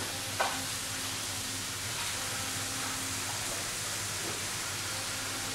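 Model train running along its track: a steady rushing hiss, with a single sharp click about half a second in.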